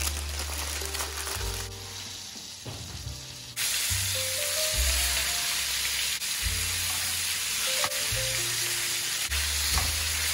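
Flour-coated chicken breasts frying in hot oil in a stainless steel pan: a loud, steady sizzle that cuts in abruptly about three and a half seconds in. Background music with a bass line plays throughout.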